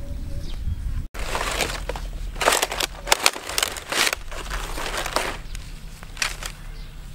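Dry palm fronds crackling and rustling as a stingray is turned over and moved about on them by hand, in a run of crinkly bursts from about a second and a half in, loudest a little before the middle.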